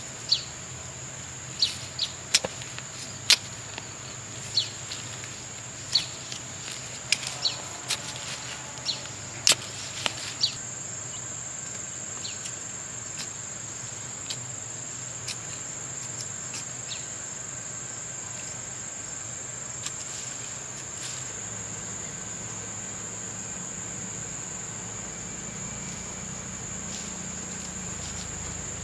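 Steady high-pitched insect drone throughout. Over the first ten seconds or so, about a dozen sharp strikes of a small metal hand tool digging into soil, which then stop.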